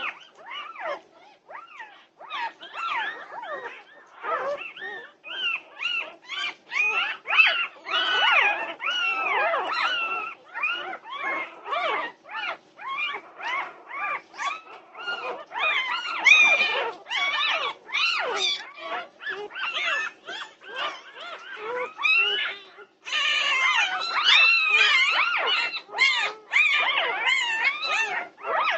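A litter of young Norwegian Buhund puppies squealing and crying over one another, a constant chorus of high, wavering cries that grows loudest about eight seconds in and again for the last several seconds.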